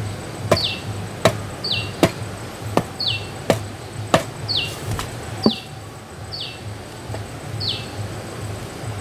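Seven sharp knocks about three-quarters of a second apart, stopping a little past halfway: a hand-held stone hammering at a small water pump's intake fitting. A bird repeats a short falling call about once a second throughout.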